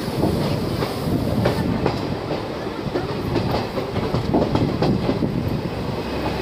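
Passenger train coach running along the track, heard from its open door: a steady rumble with wheels clattering over rail joints in irregular clicks.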